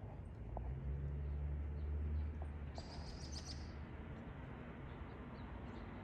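Small birds chirping faintly here and there, with a short cluster of high chirps about three seconds in. Under them a low rumble swells from about a second in and fades by about three and a half seconds.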